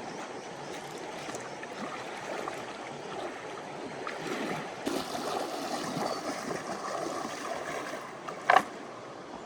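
Water sloshing and splashing, busier in the middle, with one brief sharp sound near the end.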